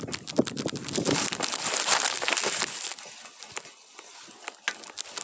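Korean pine branches rustling and crackling, needles and twigs brushing and snapping in a dense run of small clicks. It is loud for about the first three seconds, then quieter.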